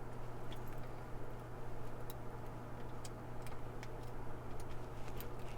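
Light, irregular metallic clicks of a pick and tension wrench working the pins inside a laminated steel padlock, over a steady low hum.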